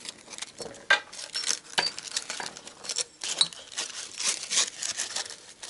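Sandpaper rustling and crinkling by hand as strips are pushed into the split holder of a homemade cylinder hone, with a few sharp clicks of the metal parts about one, two and three seconds in.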